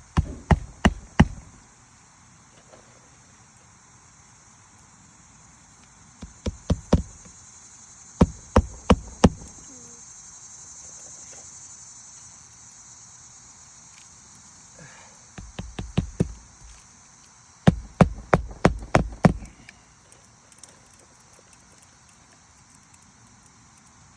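Roofing nails being hammered into a new asphalt shingle: five quick bursts of sharp hammer blows, four to six blows each, several a second. Insects buzz steadily underneath.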